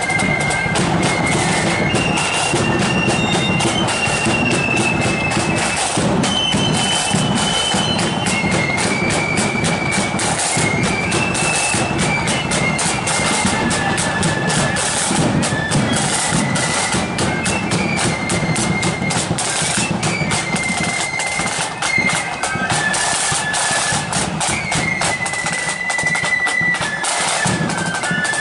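Marching flute band playing a tune: flutes carry a high melody over steady, rapid snare-drum playing.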